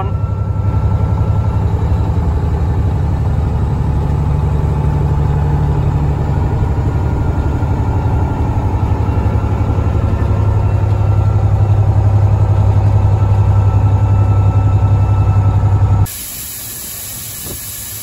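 Semi truck's diesel engine heard from inside the cab, a steady low drone that grows louder over the later seconds as the truck heads to town with a load of corn. About two seconds before the end it cuts off suddenly, replaced by the quieter steady hiss of shelled corn pouring from the trailer through an elevator's dump grate.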